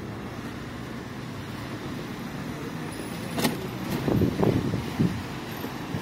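Road traffic on a wet, slushy street: a steady hiss of cars passing. About three and a half seconds in come two sharp clicks, followed by a second or so of dull thumps.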